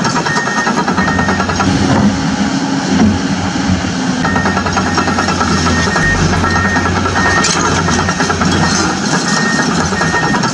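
Background music with a steady repeating pattern, over a continuous low engine-like hum.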